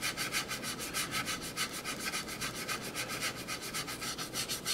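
Stiff-bristled paintbrush scrubbing oil paint into the surface of a plastic scale model aircraft, in rapid, even back-and-forth strokes of about eight a second, blending in a weathered exhaust stain.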